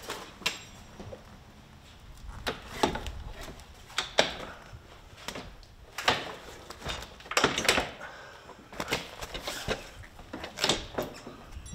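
A folded fabric soft top being handled and laid onto a Jeep's roll cage: bursts of fabric rustling and scraping with a few sharp knocks from its frame.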